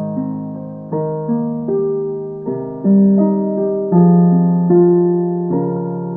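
Background music: piano or electric-piano chords and notes struck one after another and left to fade.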